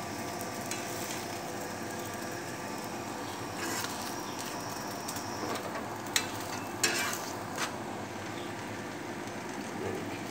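A paratha frying on a flat griddle (tawa), sizzling steadily, with a few sharp clicks a little past halfway.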